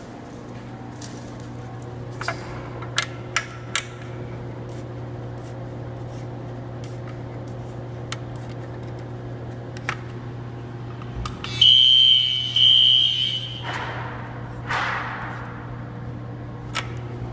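Fire alarm horns sounding during a system test: a steady low, buzzing horn tone starts at once and runs on, with scattered clicks. About twelve seconds in, a much louder high-pitched tone blares twice, each blast about a second long.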